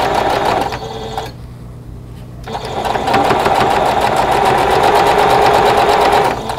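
Singer sewing machine stitching a seam through quilt patches. It stops for about a second, starting about a second in, then runs steadily again.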